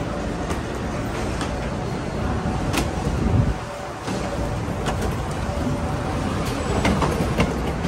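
Wheeled hard-shell suitcase rolling over deck planks and down a gangway ramp: a steady low rumble with scattered clicks and knocks, one louder knock a little past three seconds followed by a brief quieter moment.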